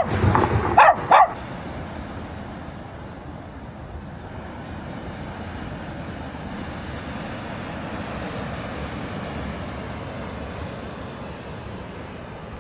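A dog barks four times in quick succession at the start, then gives way to a steady, even rushing noise.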